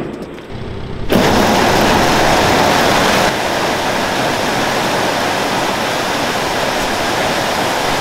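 Soybeans pouring out as grain is unloaded: a loud, steady rush of flowing beans that starts suddenly about a second in.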